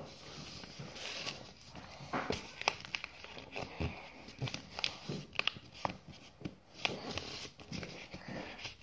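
A sheet of paper being folded and creased by hand on a tabletop: irregular soft rustles, crinkles and small clicks as the fingers press the folds.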